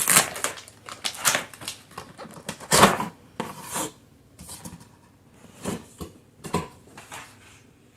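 A cardboard robot-vacuum box being opened by hand: irregular scrapes, rips and rustles of cardboard and packing, the loudest about three seconds in.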